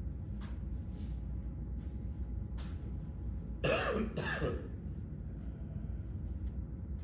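A man coughs twice in quick succession into his hand, over the steady low hum of the room.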